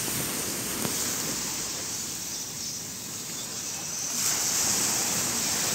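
Ocean surf washing onto the beach, a steady rush of noise that swells louder about four seconds in.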